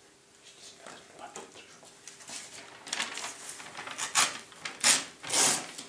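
Rustling and rubbing handling noises. They are soft and scattered at first, then grow to three loud rustling bursts in the last two seconds.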